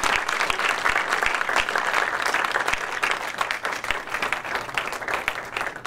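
Lecture-room audience applauding, many people clapping at once, thinning out near the end.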